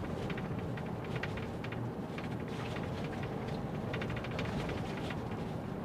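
Vehicle driving on a wet, sloppy gravel road: a steady rumble of tyres on the road surface with rapid scattered ticking of grit and spray against the body.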